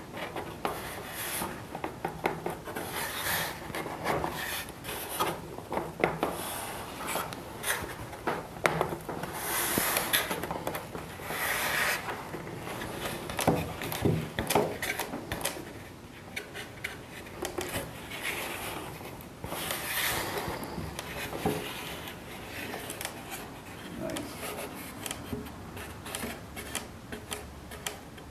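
Wooden aileron rubbing and scraping against the wooden trailing edge of a model airplane wing as it is pushed and shifted into place. The scrapes come in irregular strokes, with small knocks of wood on wood.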